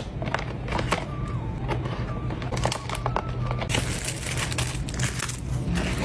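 Background music under the crinkling and rustling of packaging being handled, with many small clicks and taps. The rustling grows denser and hissier about two-thirds of the way in.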